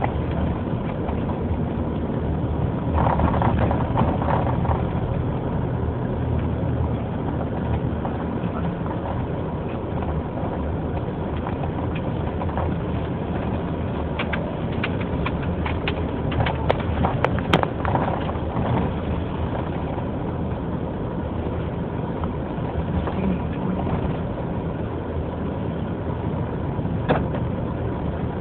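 Motor vehicle engine running steadily with road noise as it drives along a street, with a run of sharp clicks and knocks a little past halfway.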